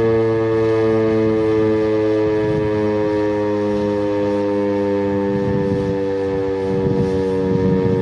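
STH-10 outdoor warning siren sounding its daily noon test: a loud, steady wail of several tones at once, its pitch sagging slightly.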